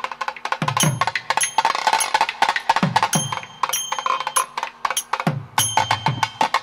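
Rhythmic percussion music: a fast patter of sharp drum strokes, with deep drum strokes that slide down in pitch every second or two, and a small bell or cymbal ringing out briefly a few times.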